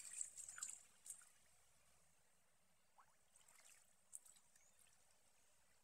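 Near silence, with a few faint splashes of shallow river water in the first second and a few faint ticks and drips later on.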